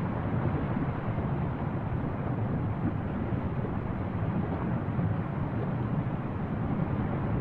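Erupting Fagradalsfjall lava vent spattering from its cone: a steady low rumbling noise with no beat or separate bangs, heaviest in the bass.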